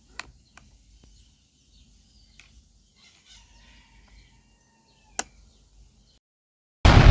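Faint bird calls and two sharp clicks, the second much louder, then a brief dead silence and a sudden loud blast-like noise near the end that fades slowly.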